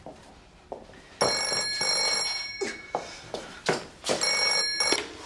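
Telephone ringing twice: two long shrill rings about three seconds apart, with a few short knocks between them.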